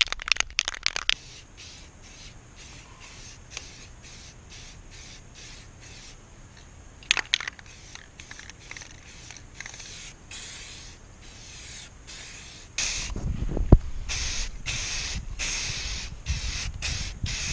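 Rust-Oleum High Heat primer aerosol can being shaken, its mixing ball rattling, then sprayed in short hissing bursts that grow longer and louder in the last several seconds. A low rumble and one sharp thump on the microphone come in near the end.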